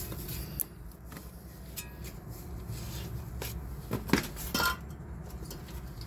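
Scattered, irregular metallic clinks and knocks of tools and parts being handled during CV axle work, over a steady low hum.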